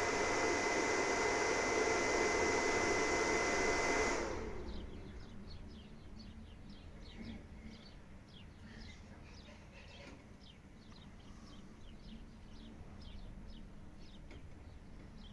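Inverter cooling fan whirring steadily with a thin high whine, cutting off suddenly about four seconds in. After that only faint, short high chirps remain.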